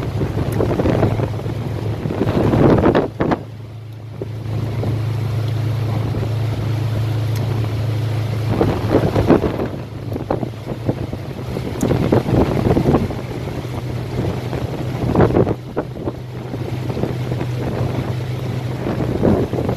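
Strong typhoon wind buffeting the microphone in irregular gusts, with a steady low hum underneath.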